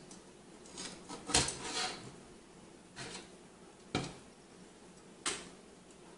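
About half a dozen light clicks and knocks from handling an Arctic Accelero S3 graphics-card heatsink and pushing small metal pegs through its aluminium fins. The sharpest clicks come about a second and a half in, at four seconds and just after five.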